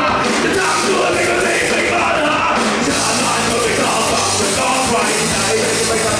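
Live rock band playing: distorted electric guitar, bass and drums, with a singer's voice over them.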